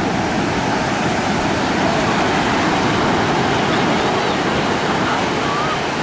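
Ocean surf breaking on a sandy beach: a steady, dense rush of waves.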